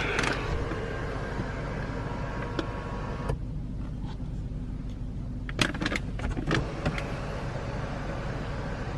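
Electric sunroof motor of a 2017 Mercedes-Benz E300 running with a steady whine, which changes about three seconds in, then a few sharp clicks around six seconds in.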